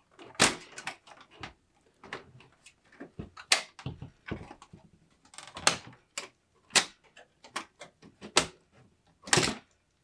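Knocks and clicks from a budget PC case being handled and taken apart: panels and parts knocking against its frame, about a dozen irregular sharp strikes of varying loudness.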